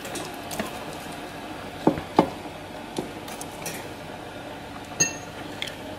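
A metal fork or tongs knocking against an air fryer's nonstick basket while chicken thighs are turned, giving a few sharp clinks about two, three and five seconds in, the last one ringing briefly, over a steady low hum.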